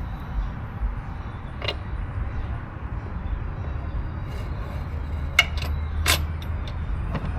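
A few sharp clicks and taps of a socket and bolt against metal as a bolt is fished into its hole, over a steady low rumble.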